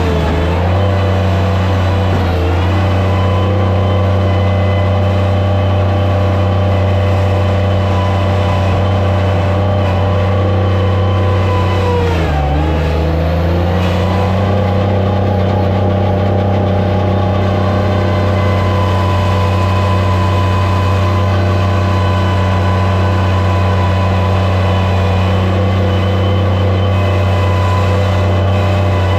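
Skid steer loader's engine running steadily at high throttle, its pitch dipping briefly near the start and again about twelve seconds in as it bogs down under load, then recovering.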